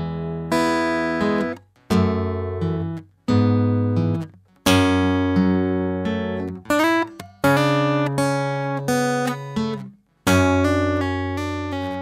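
Steel-string acoustic guitar fingerpicked, playing the F-sharp minor intro phrase note by note with hammer-ons, pull-offs and a slide. The notes ring over one another in short phrases, each broken off by a brief stop.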